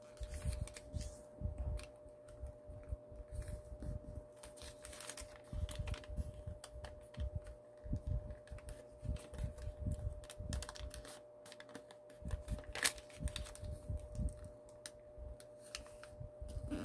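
Origami paper being folded and creased by hand: irregular soft taps, rustles and presses of paper and fingers against a table, with one sharper click about thirteen seconds in. A faint steady hum runs underneath.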